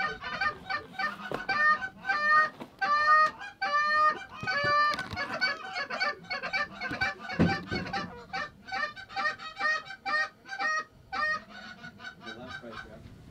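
Rapid, overlapping Canada goose honks and clucks as geese are worked into the decoys. The longest, loudest honks come about two to five seconds in, followed by quicker, shorter clucks that thin out near the end.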